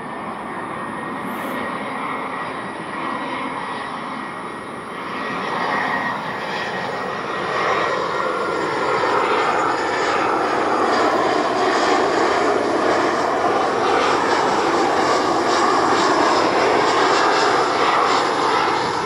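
Airbus A320-200 airliner on final approach with its landing gear down, its jet engines running at approach power. The engine noise swells from about a third of the way in and stays loudest as the plane nears.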